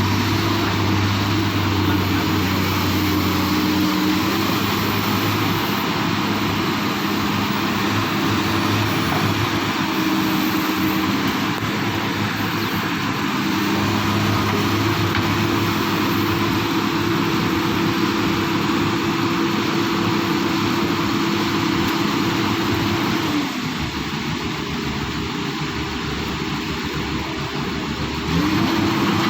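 Excavator's diesel engine running steadily as the machine works. The engine note drops and the sound eases about three-quarters of the way through, then rises again near the end.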